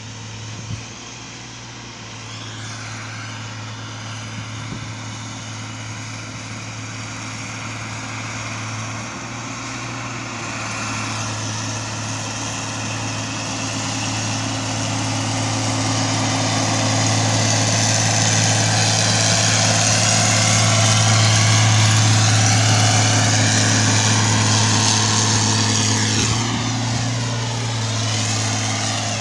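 Diesel engine of a Plasser track-levelling (tamping) machine running with a steady low drone, growing louder for about twenty seconds and easing off near the end as its whine falls in pitch.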